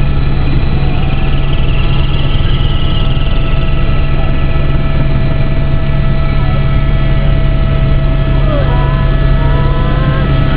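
Steady, loud engine drone of a small sightseeing aircraft heard from inside the cabin, a constant low hum with several fixed whining tones above it.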